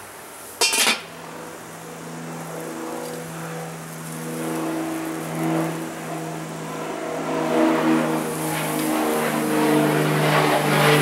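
A short metallic clink about half a second in, then a steady motor-like hum that comes in and runs on underneath, over a hiss that grows louder toward the end, which fits a steak sizzling on a hot charcoal grill grate.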